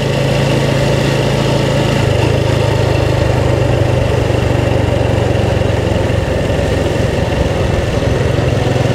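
Motorbike engine running steadily while riding along, with a rushing noise of air and road over it; the engine note rises a little about two seconds in and drops back after about six seconds.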